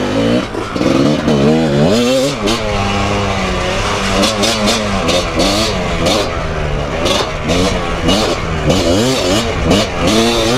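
Kawasaki KDX200 two-stroke dirt bike engine being ridden on a trail, its pitch rising and falling over and over as the throttle is worked and gears change.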